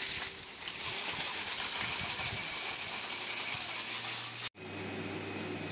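Water spraying from a garden hose, a steady hiss as it lands on plants and gravel. About four and a half seconds in it cuts off suddenly, giving way to a low steady hum.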